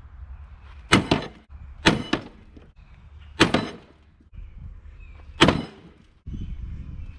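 Sledgehammer striking a steel pipe fitted over a lawn mower's bent crankshaft end: four hard, ringing metal-on-metal blows one to two seconds apart, hammering the bent shaft to free it up so the engine can be pulled over.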